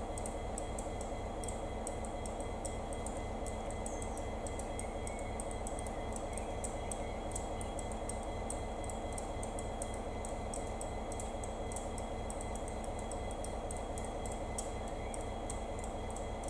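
Class 59 diesel locomotive's two-stroke EMD V16 engine rumbling steadily as it approaches slowly, with a quick run of light high ticks over it.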